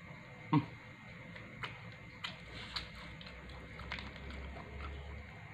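A person chewing a mouthful of pizza close to the microphone: one sharp smack about half a second in, then scattered short crunches and mouth clicks.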